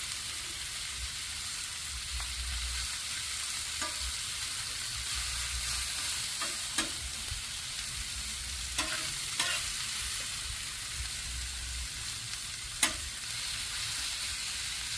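Sliced potatoes and onions sizzling as they fry in olive oil and butter on the grill, a steady hiss. A handful of short, sharp clicks break through it, the loudest one near the end.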